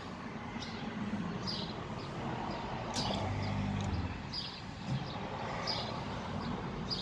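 Self-service fresh-milk vending machine running as it dispenses milk into a glass bottle: a steady low hum under the rush of the pour. Short high bird chirps come about once a second.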